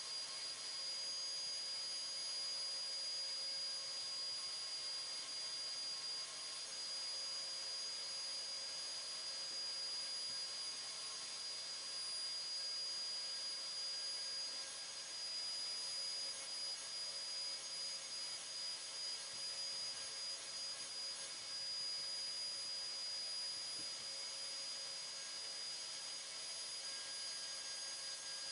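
Dust-extraction vacuum running steadily, drawing air through the hose of a hand sanding block during dry sanding of primer, with an even high-pitched whine over a hiss.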